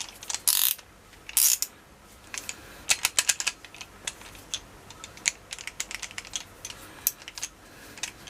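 Hand ratchet with an extension fitted, clicking in quick irregular runs as it is worked back and forth, after two short scraping rasps about half a second and a second and a half in.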